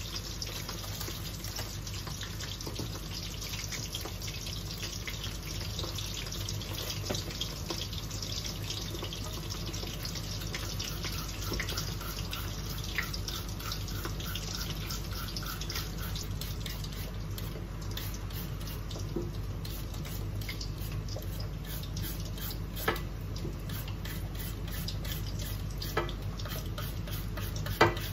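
Batter-coated shrimp deep-frying in oil in a stainless steel wok: a steady sizzle, with a few sharp pops in the second half.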